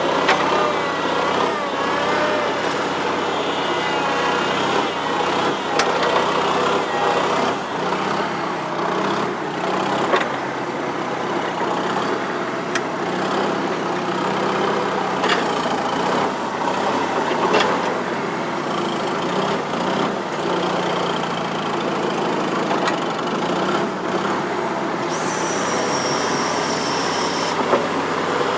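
New Holland L425 skid steer loader's four-cylinder Wisconsin engine running steadily. A wavering higher whine rides over it early on, sharp knocks come every few seconds, and a thin high squeal lasts about two seconds near the end.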